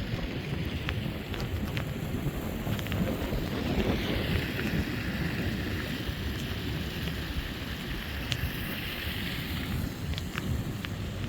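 Gale-force wind buffeting the microphone in a steady low rumble, with storm surf behind it; a wave's hissing wash swells up in the middle for several seconds and fades.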